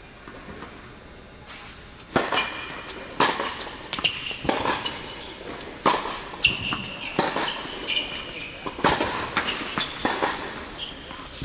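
Tennis rally on an indoor hard court: sharp racket strikes and ball bounces, starting about two seconds in and coming every second or so, with a short ring of room echo after each.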